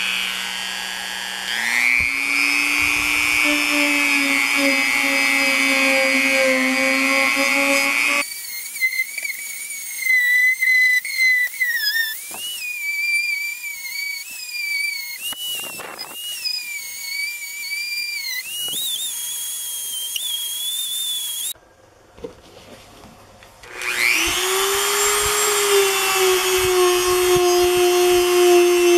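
Hand-held rotary tool with a polishing wheel running at speed, with a steady high whine. It spins up with a rising pitch at the start, its tone wavers up and down in the middle stretch, and after a brief near-silent gap it spins up again and runs steadily.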